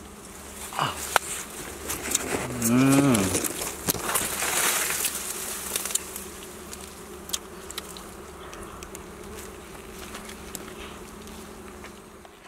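Wild honey bees buzzing steadily around their small open comb, mixed with crackles and clicks as the wax comb is broken off and eaten. A single low, drawn-out call rises and falls about two and a half seconds in.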